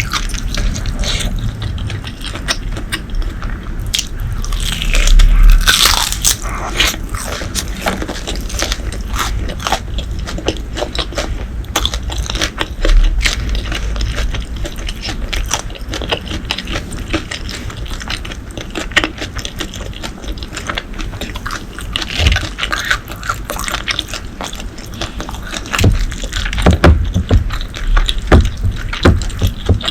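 Close-miked eating sounds: a person chewing and biting food, with many quick wet mouth clicks and crunches, growing louder for a moment about five seconds in and again near the end.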